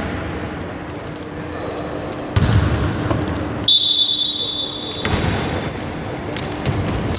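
Basketball being played on a hardwood floor in a large hall: the ball thuds on the court a few times and sneakers squeak sharply on the floor several times.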